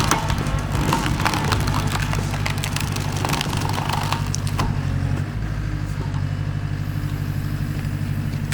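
Skid steer engine running steadily, with sharp knocks and clicks over the first few seconds, then running on evenly.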